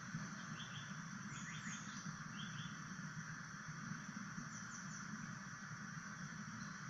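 A songbird's short, high chirping notes in quick little clusters, several in the first half and a few more about five seconds in, over a steady hiss and low hum.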